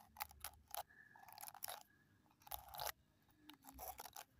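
Quiet ASMR trigger sound made close to the microphone: a run of soft clicks and taps, with two longer scratchy rustles about one and a half and two and a half seconds in.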